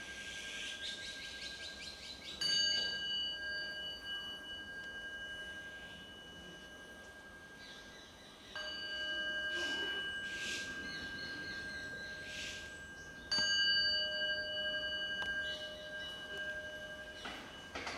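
Buddhist temple bowl bell struck three times, each strike ringing on in several long, steady tones that fade slowly and overlap the next stroke.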